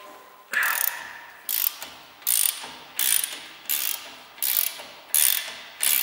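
A ratchet wrench clicking in rapid bursts as it is swung back and forth, about eight strokes at a steady pace, undoing a 17 mm front brake caliper bracket bolt.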